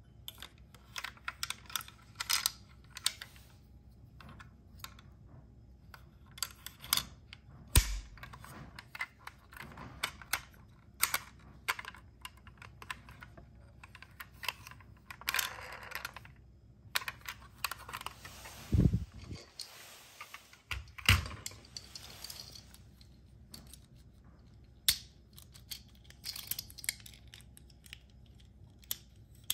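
Small irregular clicks and taps of plastic and die-cast toy vehicles being handled: doors and hatches opened and snapped shut, and parts of a transforming toy clicked into place. Three louder knocks come about 8, 19 and 21 seconds in, with a few brief stretches of rustling.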